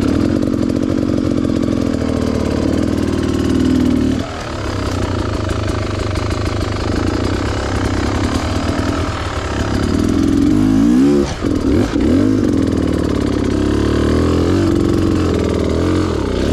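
Beta Xtrainer two-stroke dirt bike engine running at low revs while crawling over rocks. The throttle eases off about four seconds in, and the revs jump up and down quickly a little past the middle.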